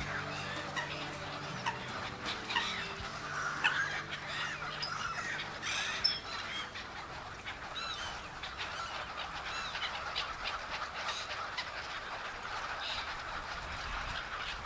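A flock of waterbirds calling, many short overlapping squawks and honks scattered throughout. Faint music fades out during the first few seconds.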